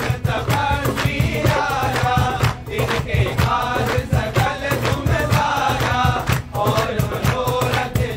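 A group of men singing a Hindu devotional song (bhajan) in unison, accompanied by acoustic guitar and dholak drum, with hands clapping in rhythm.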